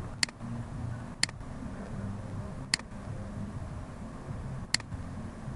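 A computer mouse clicking four times: single sharp clicks a second or two apart, over a low steady hum.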